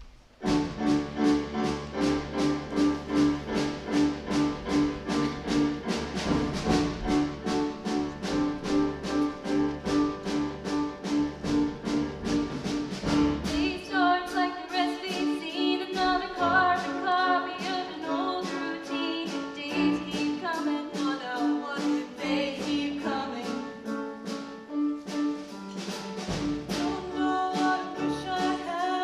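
Live choir performance with instrumental accompaniment: a steady, repeated accompaniment note opens the piece, and the singers come in about halfway through.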